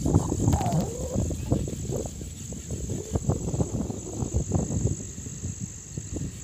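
A steady high-pitched trill of crickets or other field insects, under irregular low rumbling noise.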